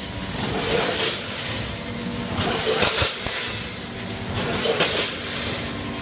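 Multihead weigher and bagging machine running on popcorn kernels: a steady machine hum with repeated short hissing rushes, as kernels stream through the weigher's feed pans and buckets.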